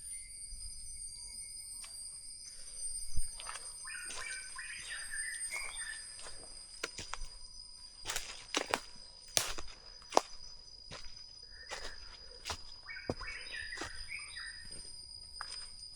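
Forest ambience: a steady high insect drone, with bursts of bird chirping about four seconds in and again near the end. A few sharp clicks or snaps come in the middle.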